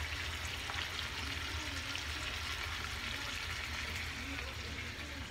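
Pork chops frying in a pan with peppers and onions, a steady sizzle with faint scattered crackles over a low hum.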